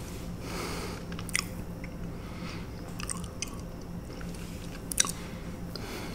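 Close-miked mouth sounds of someone eating Alfredo pasta: chewing with wet lip smacks and a few sharp clicks, the loudest about five seconds in.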